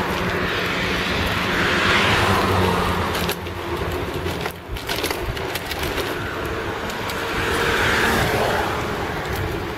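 Street traffic and wind rumble heard from a bicycle, picked up by a camera hanging loose on the rider's chest: a steady noisy rumble with cars swelling past about two seconds in and again around eight seconds. The sound drops away briefly about four and a half seconds in.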